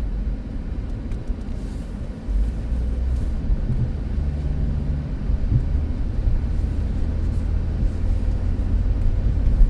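Inside the cabin of a 2005 Dodge Caravan minivan moving off through snow: a steady low rumble of engine and road noise, growing louder a little over two seconds in as the van picks up speed.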